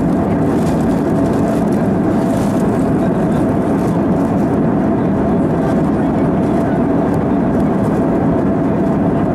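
Steady cabin noise of an Airbus A320-214 in flight, heard inside the cabin: an even roar of the CFM56 engines and the airflow, with a faint steady hum running through it.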